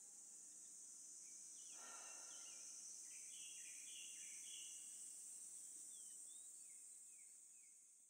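Faint outdoor ambience: a series of short bird chirps from about two seconds in, over a steady high hiss, fading out near the end.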